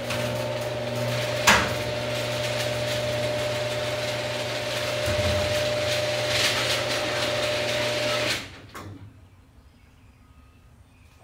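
Motorized roll-up door of a warehouse rising: a steady motor hum with the rattle of the moving door and a sharp knock about a second and a half in. It stops abruptly about eight seconds in, followed by a single clunk.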